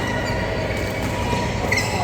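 Court shoes squeaking on an indoor badminton court floor, a faint drawn-out squeak and then a short sharp one near the end, over steady hall noise.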